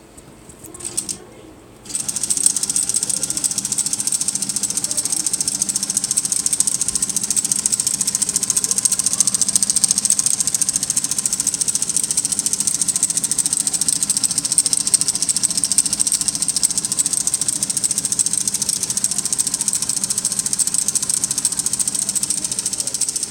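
K'nex motor driving the toy paper shredder's plastic gears with the cover off, starting about two seconds in and running steadily as a fast, high-pitched mechanical whirr and clatter. A few small clicks come just before it.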